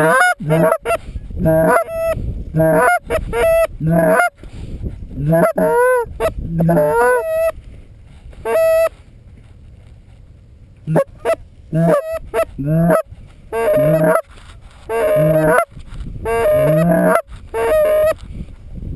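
Geese honking and clucking: many short pitched calls with breaking, rising notes in quick runs, pausing for about two seconds in the middle before the calling resumes.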